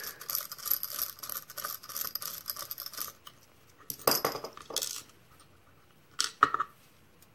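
Steel lock pick working the pins of a Russwin pin-tumbler cylinder under tension: a fast stream of small metallic ticks and scrapes that stops about three seconds in when the lock opens. A few separate metallic clicks follow as the opened cylinder is turned and handled.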